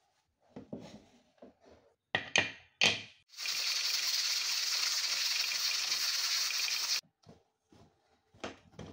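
Pressure cooker lid knocking and clicking as it is put on and closed, then the cooker's pressure weight hissing loudly and steadily with escaping steam for about three and a half seconds, cutting off suddenly.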